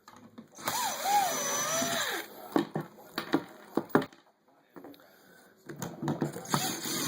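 Cordless drill running in two bursts, its pitch wavering up and down, with sharp clicks and knocks in between.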